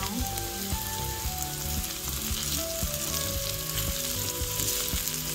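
Sliced okra and onions sizzling steadily in a small cast iron skillet on high heat, almost cooked down, while a wooden spoon stirs them with small scraping knocks against the pan.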